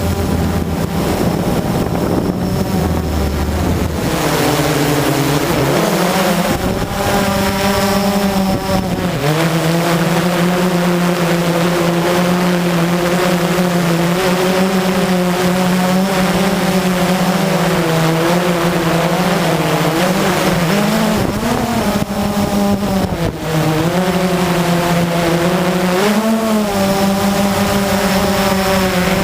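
Blade 350 QX quadcopter's brushless motors and propellers running in flight: a steady buzzing hum whose pitch dips and rises several times as the throttle changes.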